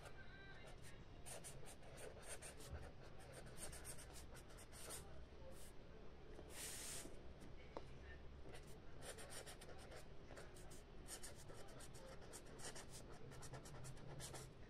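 Handwriting on paper: faint scratching of many short strokes in quick, irregular succession, with one longer stroke about seven seconds in.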